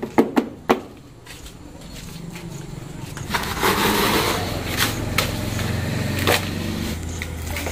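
Hands scooping and scraping loose sandy soil into a plastic basin: a gritty scraping that swells midway, with a few sharp knocks, the first ones within the first second.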